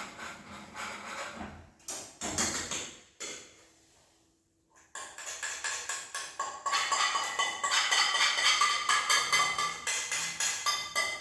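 Music with quick percussive strikes and steady tones, broken by a brief near-silent gap about three and a half seconds in.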